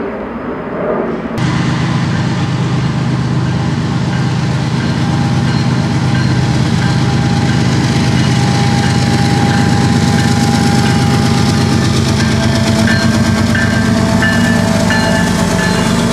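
Union Pacific freight train's diesel locomotives passing close by, engines running with a steady low drone over rolling wheel noise. The loud sound comes in suddenly about a second and a half in.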